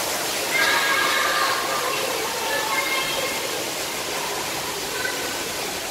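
Steady rush of running water in open aquarium pools: an even hiss without breaks.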